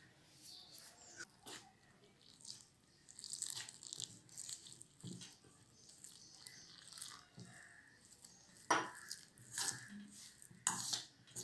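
A hand mixing and squeezing damp rice flour in a stainless steel bowl as boiling water is worked in for dough: faint, irregular soft crunching and rustling, with a few sharper taps near the end.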